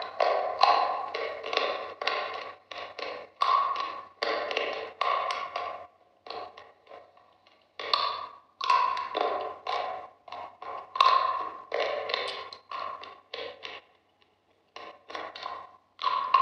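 Close-miked crunching as a hard white frozen block is bitten and chewed: a quick run of sharp, crisp cracks, two or three a second, thinning out about six seconds in and pausing briefly near the end.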